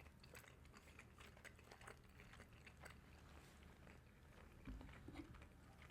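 Very faint chewing, soft scattered mouth clicks of someone eating, near silence.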